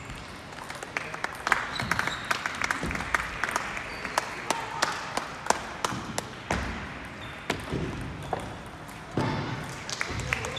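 Table tennis balls being struck by bats and bouncing on tables, many sharp irregular clicks from the rally in play and neighbouring tables, over a murmur of voices in a large hall.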